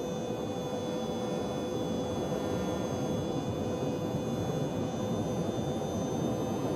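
A machine running steadily: an even drone with a steady high whine over it, unchanging throughout.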